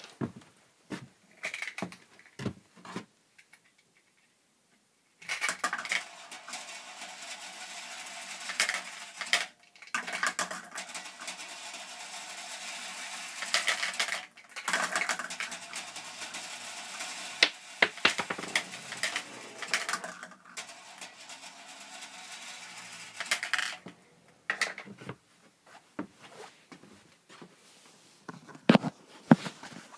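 Steel pachinko balls rolling and clattering through a homemade ball coaster: a few separate clicks, then about twenty seconds of continuous rolling rattle with sharp metallic clinks, then a few scattered clicks again near the end.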